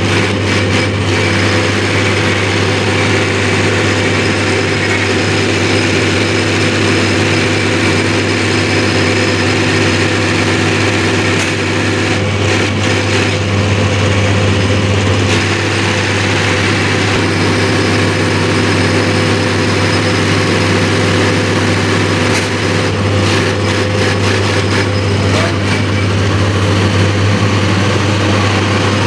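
Diesel fuel injection pump test bench running with an inline injection pump mounted on it: a loud, steady machine drone with a low hum. Two spells of rapid clicking come through it, about twelve seconds in and again about twenty-three seconds in.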